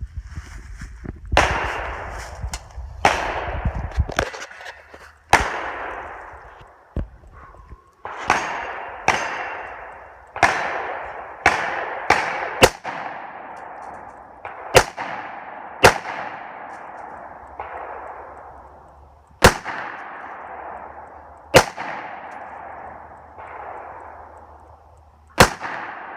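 Gunshots fired one after another at steel targets, about eighteen shots at an uneven pace of roughly one every second or two, each trailing off in a long echo.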